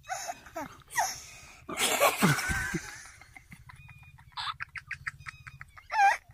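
Two boys laughing in short repeated bursts, loudest about two seconds in and again just before the end.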